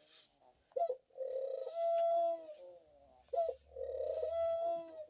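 Pet dove cooing twice, each call a short clipped note followed by a long drawn-out coo.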